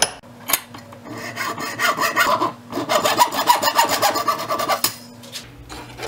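A hand file rasping at the cut end of a plastic 20-pin power connector housing held in a vise, trimming it down to the wall. Quick back-and-forth strokes in two runs, with a short break midway, after a sharp click at the start.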